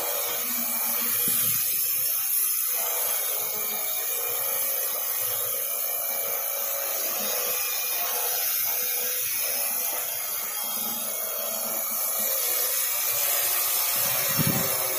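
Quadcopter's electric motors and propellers whirring steadily as it hovers overhead. There is a brief low thump near the end.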